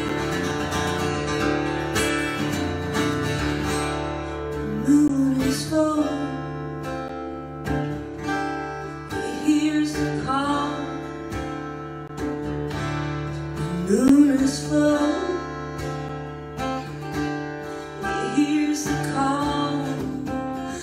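Gibson acoustic guitar played in a slow song, with a woman's voice singing in phrases that rise and fall, one about every five seconds.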